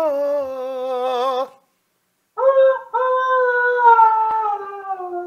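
A male student singing in falsetto, sliding down a scale in small steps. The first descent ends about a second and a half in; after a short pause he starts again from around high C (C5) and steps down once more. The teacher takes it for a falsetto started from a high, shallow breath rather than a deep one.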